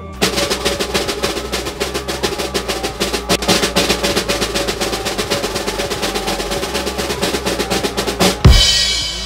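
Drum roll sound effect: a long, rapid roll that builds suspense and ends about eight and a half seconds in with one loud final hit and a ringing crash that fades.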